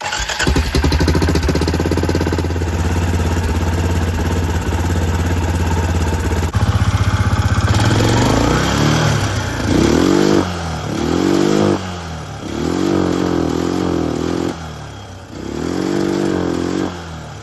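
2005 Arctic Cat 400 ATV's single-cylinder engine running at a steady idle, then revved up and let back down several times. The owner thinks its carburetor may need going through again.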